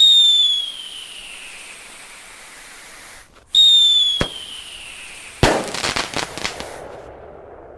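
Fireworks: two whistling fireworks each start suddenly with a shrill whistle that falls in pitch. A sharp crack follows, then a loud bang and a quick string of crackling pops.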